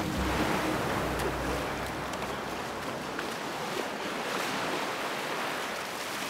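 Shallow sea water sloshing and splashing, as of waves and legs churning through surf. Steady musical tones fade out in the first second or two.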